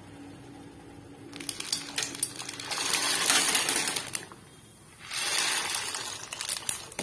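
Dry elbow macaroni poured off a plate into a pot of boiling water, the hard pieces clattering and rattling as they slide and drop in. It comes in two pours: the first starts about a second in and runs about three seconds, the second starts about five seconds in.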